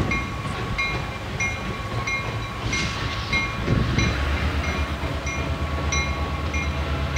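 Approaching Norfolk Southern EMD GP38-2 diesel locomotive, its two-stroke engine's low pulsing rumble growing stronger about four seconds in. A bell rings steadily about twice a second throughout.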